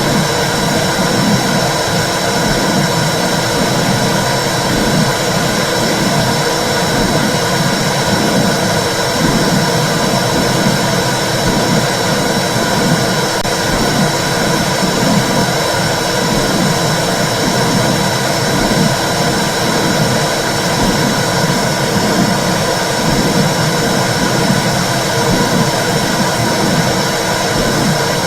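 Womb sound: a steady, loud whooshing over a low, rhythmic pulsing, the blood-flow and heartbeat sound heard inside the uterus, played as soothing white noise for babies.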